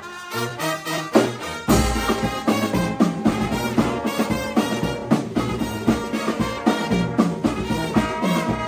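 Background music with a steady beat, laid over the footage.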